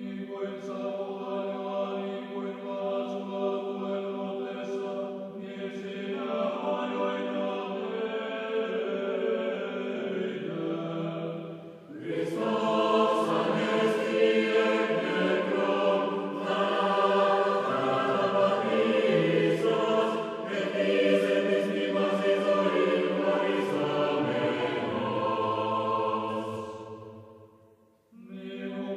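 A choir singing slow, sustained chords. A louder phrase begins about twelve seconds in, and the singing fades out near the end.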